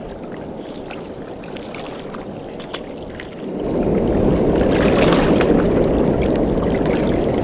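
Wind buffeting the microphone as a loud rushing noise, heaviest in the lows, setting in about three and a half seconds in. Before it there is a quieter rushing noise with a few small clicks.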